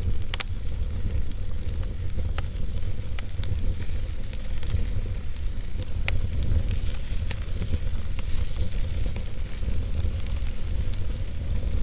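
Fire burning in a fireplace: a steady low rumble with scattered sharp crackles and pops, a few standing out louder.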